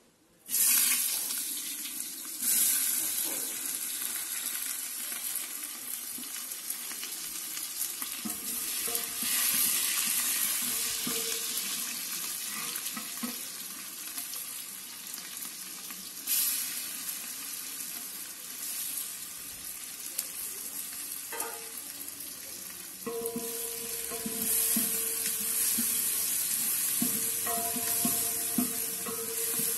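Pieces of meat frying in a hot aluminium pot, a dense sizzling hiss that starts suddenly as the meat goes in, about half a second in. It swells up again several times as the meat is stirred with a wooden stick.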